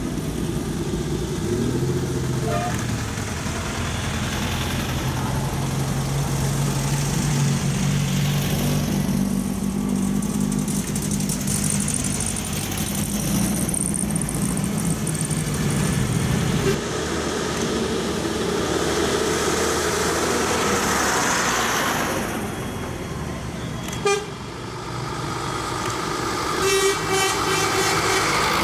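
Vintage cars passing one after another, led by Volkswagen Beetles with their air-cooled flat-four engines running by. Later a single sharp click, then a horn toots near the end as an old DAF truck comes past.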